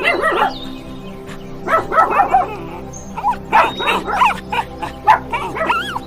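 A dog giving four short bouts of quick calls that bend up and down in pitch, over background music with steady held tones.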